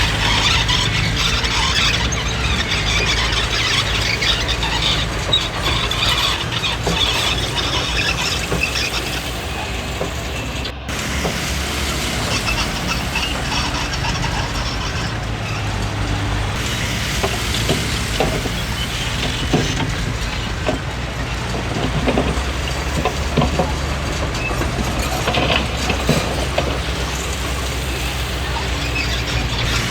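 Komatsu D20P crawler bulldozer working: its diesel engine runs steadily under a high, metallic squeal from the steel tracks and undercarriage.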